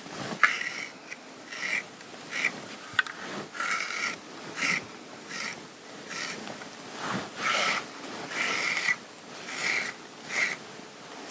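Repeated swishing strokes of fabric being rubbed or brushed, about a dozen at uneven intervals.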